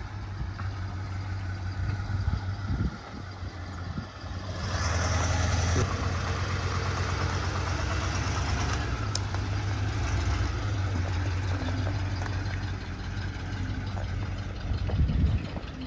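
Square-body Chevrolet Blazer's engine idling steadily and sounding healthy. It gets louder about four and a half seconds in.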